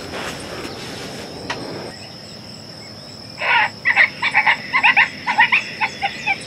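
Coyote pup distress call played from a game caller: a rapid string of short, high yelping cries, several a second, starting about halfway through.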